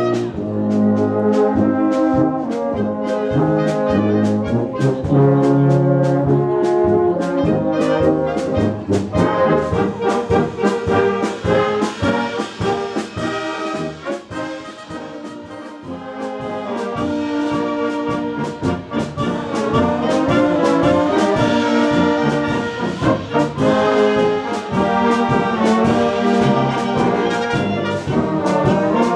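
Bohemian-style brass band playing a polka-like tune with trombones, trumpets and a steady beat. It drops to a softer passage midway, then comes back up to full volume.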